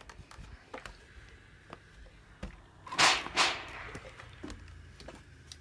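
Steam iron pressing a fabric hem: two short hisses of steam close together about three seconds in, with a few light knocks of handling around them.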